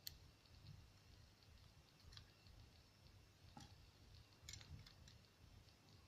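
Near silence with a few faint, sharp clicks of small lock pins being handled as they are taken out of a euro cylinder lock body.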